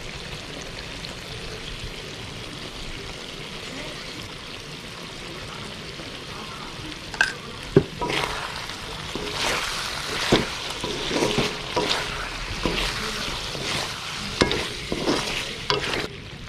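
Chicken frying in oil in a pan with a steady sizzle; from about seven seconds in, a spatula stirs and scrapes it, with several sharp knocks against the pan.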